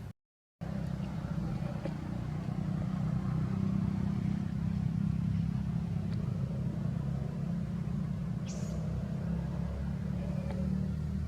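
Steady low rumble, with one short high rising chirp about eight and a half seconds in.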